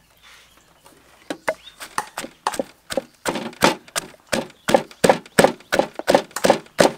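Wooden pestle pounding fresh lemongrass, lime leaves and garlic in a mortar to make a curry paste. Steady thuds about three a second start a little over a second in and grow louder.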